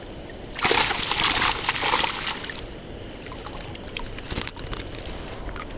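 Water streaming and splashing off a mesh fishing keepnet as it is lifted out of the river, loud for about a second and a half, then settling into dripping and trickling with scattered small ticks.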